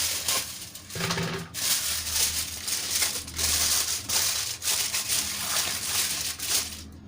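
Aluminium foil crinkling and crackling in irregular bursts as a sheet is spread and pressed over a pot of layered biryani to seal it for dum cooking, with a short pause about a second and a half in.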